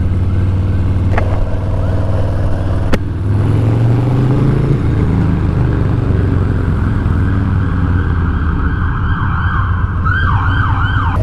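Harley-Davidson Street Bob 114's Milwaukee-Eight V-twin running steadily under way. Near the end an emergency siren yelps in quick repeated rising-and-falling wails.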